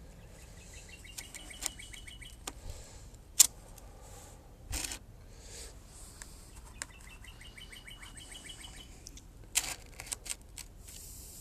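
A songbird singing a rapid trill of repeated notes, twice, each about two seconds long. Scattered sharp clicks and rustles, the loudest about three and a half seconds in, with several more near the end.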